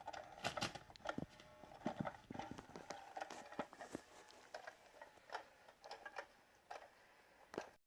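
Irregular soft taps and knocks as a kitten pounces and bats at a battery-operated motion cat toy, with the toy's small motor whirring faintly for the first few seconds.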